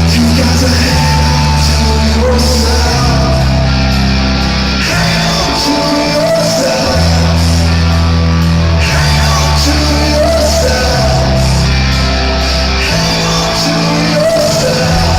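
Live rock band playing loudly in an arena, with heavy guitars and bass notes that change every second or two, and singing over them.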